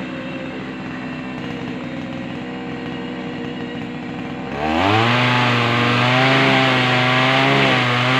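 Small engine of a motorised pruning saw idling, then revved up to full throttle about four and a half seconds in and held there at a high, steady pitch.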